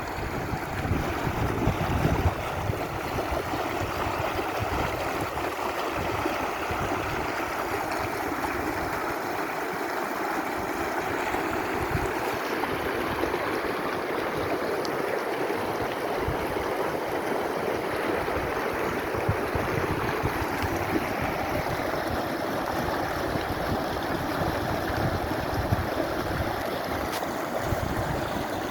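A stream of water flowing and rushing steadily. Wind buffets the microphone with low rumbles during the first couple of seconds.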